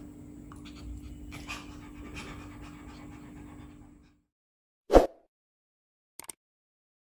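Maltese dog panting over a steady low hum for about four seconds, then the sound cuts off. About five seconds in comes a single sharp, loud thump, followed a second later by two quick clicks of a subscribe-button animation sound effect.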